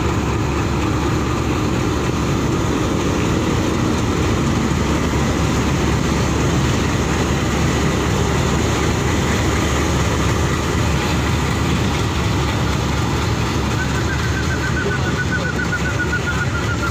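Indian Railways WDG-3A diesel locomotive, an ALCO-type 16-cylinder engine, running loud and steady as it pulls a passenger train out and passes close by, followed by the coaches rolling past. A faint wavering squeal comes in near the end.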